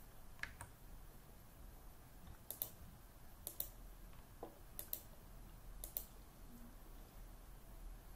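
Faint computer mouse clicks: about half a dozen short clicks, several in quick pairs, spaced roughly a second apart over quiet room tone.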